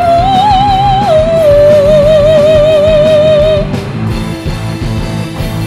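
Live rock band with a woman singing long held notes in an operatic, aria-like style with a wide vibrato, stepping up and then down over guitar and drums. The voice stops about three and a half seconds in and the band plays on more quietly.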